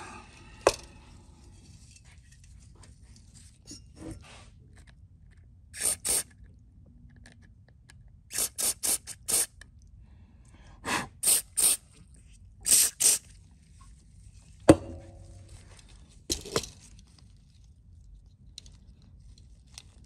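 About a dozen short hissing squirts of aerosol carburetor cleaner through its straw, in clusters of two to four, flushing dirt out of a dirty carburetor's bottom jet. A sharp click near the start and a knock a few seconds before the end come from small metal parts being handled.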